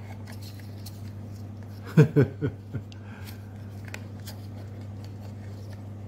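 Small plastic clicks and wire rustles as hands work the electrical wires and plastic switch block into a wall switch box, over a steady low hum. About two seconds in, a brief muttered vocal sound of a few syllables is the loudest event.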